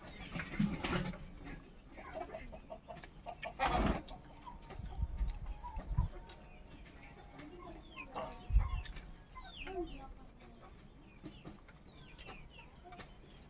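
Birds calling around a courtyard: short chirps and clucks, more of them in the second half, with a few short knocks from steel plates and bowls as people eat by hand.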